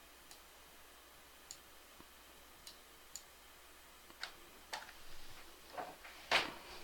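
Computer mouse clicked irregularly, a string of faint, sharp clicks with a few louder ones in the second half. The mouse is not responding because its battery has just died.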